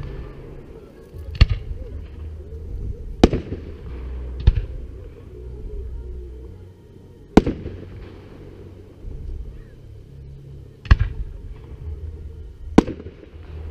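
Aerial firework shells bursting in the sky: six sharp bangs at uneven gaps of one to three and a half seconds, each followed by a brief rumbling tail.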